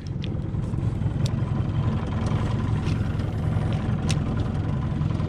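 Motorboat engine running steadily at low revs with a low, even drone, starting abruptly at the very beginning.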